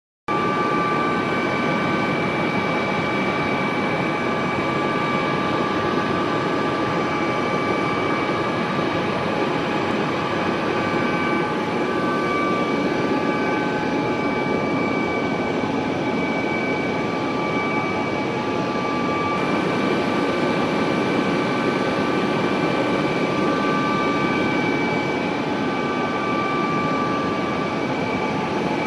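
Police helicopter in flight, heard from inside the cabin: a loud, steady rush of engine and rotor noise with several high whining tones held over it.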